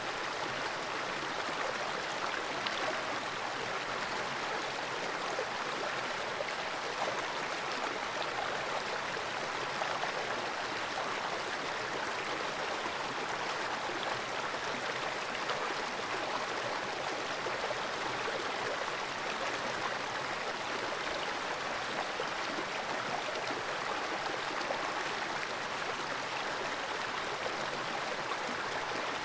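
Fast-flowing creek water rushing steadily, an even hiss with no breaks or single splashes.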